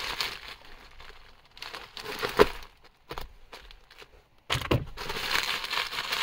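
Plastic bubble wrap crinkling as it is handled, with scattered sharp clicks; it stops for a moment near the middle, then the crinkling comes back denser and louder for the last couple of seconds.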